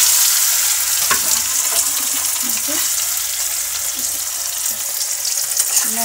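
Boiled potato pieces sizzling in hot oil in a metal kadhai, loudest at the start and easing a little, while a metal spatula scrapes and stirs them in the pan.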